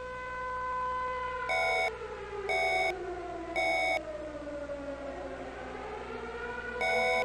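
Warning siren holding a steady wail that sinks in pitch from about a second in and winds back up near the end. Three short, louder electronic beeps come about a second apart over it, and another near the end.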